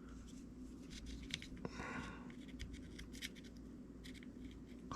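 Faint clicks and a short scrape of small metal fishing-reel parts being handled during disassembly.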